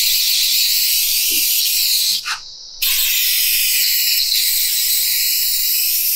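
Aerosol can of CA glue accelerator spraying in a steady hiss. It stops for about half a second a little over two seconds in, then sprays again.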